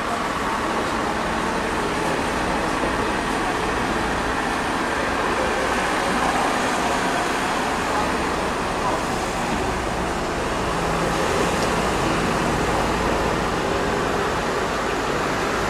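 Scania truck's diesel engine running steadily, driving the hydraulics of its truck-mounted boom while the arm is moved.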